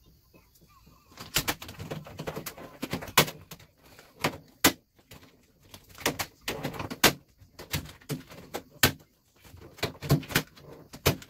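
Glossy black vinyl wrap film crackling and rustling as it is gripped, pulled and stretched by hand, with sharp snaps and crinkles in irregular bursts starting about a second in.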